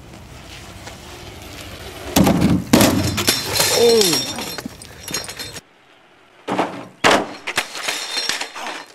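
BMX bike and rider crashing onto asphalt off a kicker ramp: a clatter of metal and body hitting the pavement and scraping along, with a short falling cry partway through. After a sudden cut, a second burst of crash impacts and clatter.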